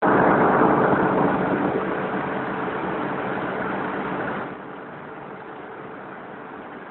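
CNC roll grinder running: a steady mechanical rush with a low hum, which drops noticeably in level about four and a half seconds in.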